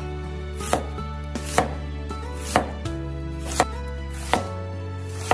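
Chinese cleaver slicing a red onion into thin strips on a wooden cutting board, the blade hitting the board about once a second. Soft background music plays underneath.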